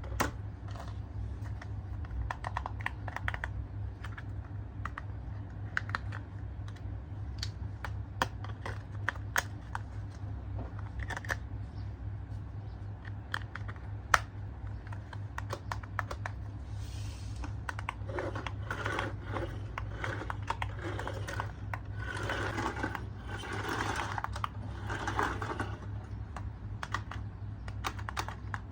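Hands handling plastic toy parts and packaging: scattered sharp clicks, getting busier with rustling from about eighteen seconds in, over a steady low hum.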